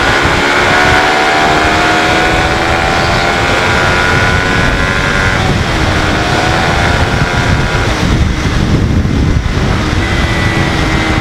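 Suzuki Raider 150 FI's single-cylinder four-stroke engine pulling hard under acceleration, its pitch climbing. The pitch falls back about five and a half and eight seconds in at gear changes, then holds steady near the end. Heavy wind buffets the rider's microphone throughout.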